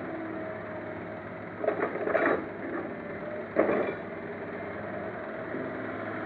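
Hydraulic excavator's diesel engine running steadily while its bucket dumps soil into a dump truck's steel bed. The falling earth lands with loud thuds and rattles about two seconds in and again at about three and a half seconds.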